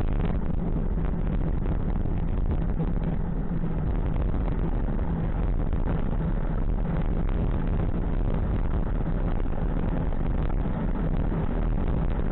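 Steady wind rumble on a bicycle-mounted camera's microphone while riding along the road.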